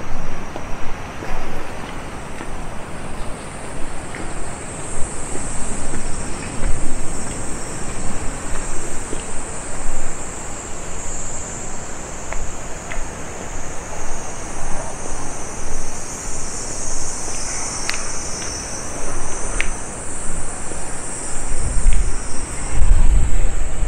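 Insects trilling steadily in a high, shrill band over a loud rushing background noise that swells and fades. Low rumbling comes in near the end.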